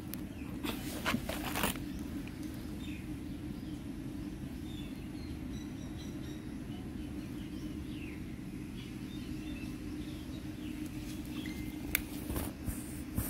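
Steady low background hum, with a few brief rustles and knocks close to the microphone about a second in and again near the end, and faint short high chirps.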